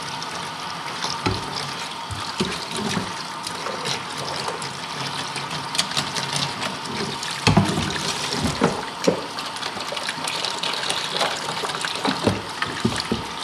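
Running water splashing steadily, with scattered light knocks throughout.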